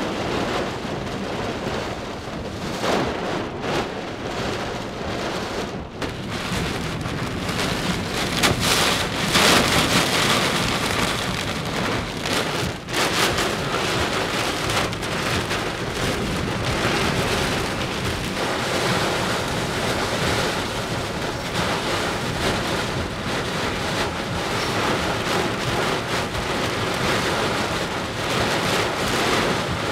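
Heavy wind-driven rain of a derecho squall line pouring on and around the car, with gusts of wind rising and falling; the loudest surge comes about nine seconds in.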